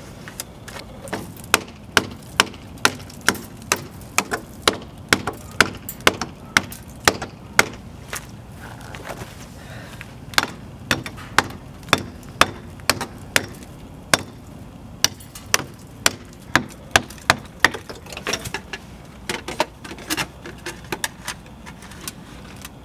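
Hammer blows chipping at a concrete block wall to widen a hole for a dryer vent pipe: sharp strikes about two a second, with a couple of short pauses.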